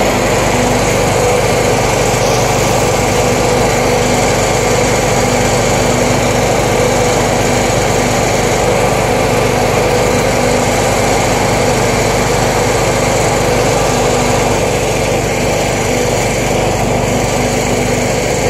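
Small petrol engine running steadily at a constant speed with an even hum, growing slightly quieter about fifteen seconds in.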